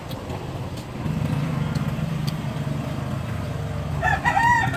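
A rooster crowing near the end, a loud call that rises and bends in pitch, over a steady low hum.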